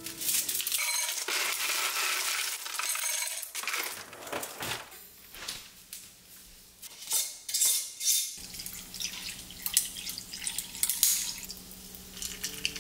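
Ice cubes and glassware clinking and rattling while an iced coffee is made, with a run of sharp clinks. A low steady hum sets in about two-thirds of the way through.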